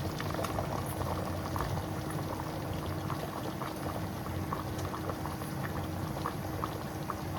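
A pot of coconut-milk massaman curry bubbling at a steady boil, with many small pops and a faint steady hum underneath.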